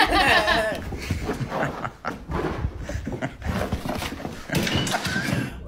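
A pet animal's sounds: a wavering cry at the start, then uneven noise with many short clicks.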